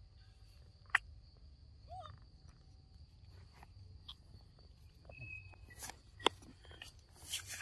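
A steady high-pitched insect drone, with a few sharp clicks, a short squeak about two seconds in, and rustling near the end.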